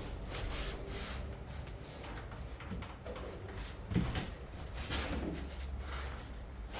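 Rubbing and scraping handling noises with a sharper knock about four seconds in, over a low steady hum.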